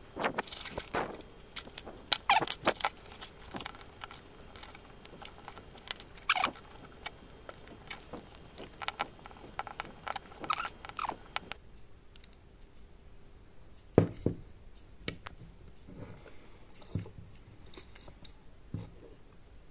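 Scattered small clicks, taps and scrapes of a precision screwdriver and tweezers working on the encoder's wired circuit board and its metal screws, with one sharper knock about two-thirds through.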